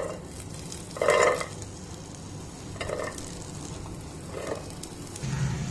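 Chopped vegetables (carrot and bean pieces) tipped by hand into an empty nonstick pot, landing in three rattling clatters, the loudest about a second in and the others near the middle and toward the end, over a faint low hum.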